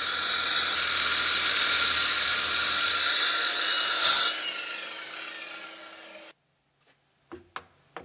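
Baier wall chaser cutting a groove into a masonry block, a steady loud grinding; a little after four seconds in it is switched off and winds down. Near the end come a few short sharp knocks of a hammer breaking out the groove.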